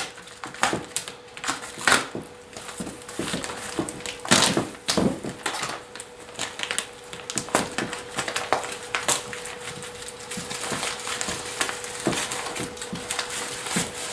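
Clear plastic shrink-wrap being torn and pulled off a stack of firecracker boxes, crinkling and crackling in irregular bursts as the cardboard boxes are shifted about.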